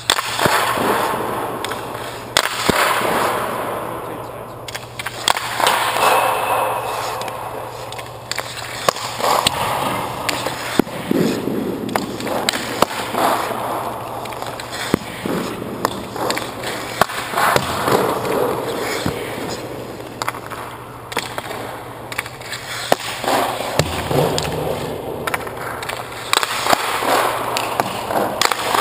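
Ice-hockey goaltender's skate blades scraping and carving the ice in repeated pushes a second or two apart, with his leg pads sliding and knocking on the ice as he drops into the butterfly and recovers.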